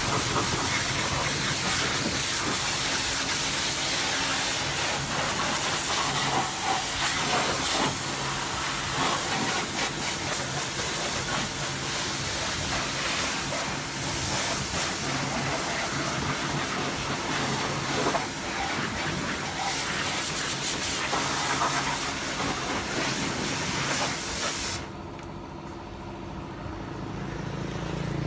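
High-pressure washer spray hissing as it blasts water over a motorcycle and the wet concrete, with the washer's pump motor humming underneath. The spray cuts off about 25 seconds in when the trigger is released.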